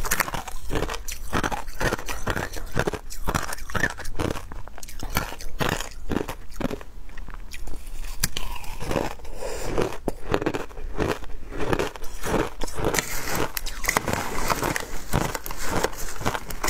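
Matcha ice being bitten and chewed close to the microphone: a steady run of crisp crunches, a few to the second, turning duller for a few seconds in the middle.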